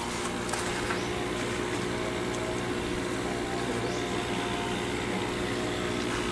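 Electric pump humming steadily, several fixed tones over an even hiss, with no change in pitch or level.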